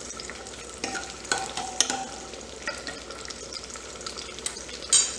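Chopped garlic and ginger sizzling in hot ghee in a kadhai, a tadka being fried. A metal spatula scrapes and clicks against the pan now and then as it is stirred, the loudest scrape near the end.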